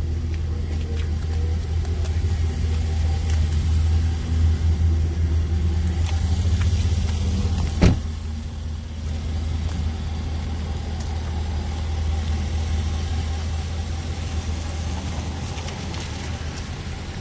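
Jaguar F-Pace SVR's supercharged 5.0-litre V8 idling with a steady deep low rumble. A single sharp thump comes about eight seconds in.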